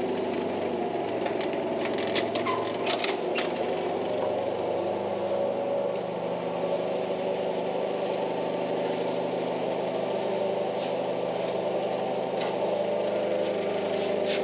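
Forklift running steadily, with a few short clanks about two to three and a half seconds in.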